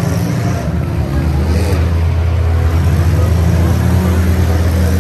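Demolition derby cars' engines running together in a loud, steady low drone.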